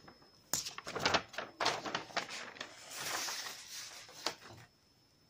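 Sheets of drawing paper rustling and crackling as they are lifted and leafed through by hand, in a rapid string of handling noises that starts about half a second in and stops shortly before the end.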